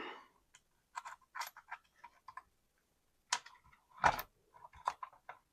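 Light, scattered clicks and clinks of small metal nuts and hardware being handled, with two sharper clicks a little past three and four seconds in.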